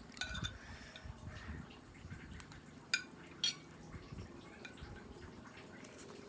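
Metal spoon clinking and scraping on a ceramic plate while scooping spicy fried noodles, with two sharp clinks about half a second apart near the middle. Between them come soft wet sounds of slurping and chewing the noodles.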